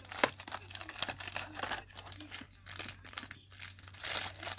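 Thin clear plastic bag around a die-cast toy car crinkling as it is pulled from its cardboard box and handled, with a sharp click about a quarter second in.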